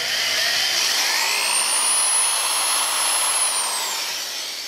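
Handheld electric drill running, its bit boring into a plastic R/C differential bulkhead. The motor's whine rises about a second in and winds down after about three and a half seconds as the drill eases off.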